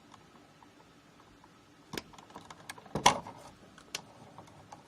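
Wire strippers clicking and snapping on short electrical wires as the insulation is stripped: a few sharp clicks about two, three and four seconds in, the one near three seconds the loudest.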